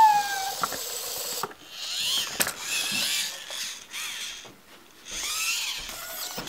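Zoomer robot dog's motors whirring in several bursts with a bending whine as it rolls over onto its side and back, after a short falling electronic tone at the start.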